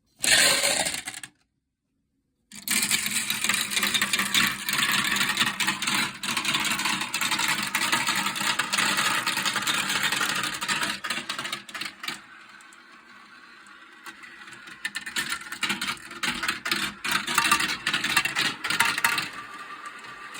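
Marbles rolling and clattering through a marble run's large spinning funnel bowls: a dense rattling whirr full of small clicks. It breaks off for about a second just after the start, thins out about two-thirds of the way through, then builds again before easing near the end.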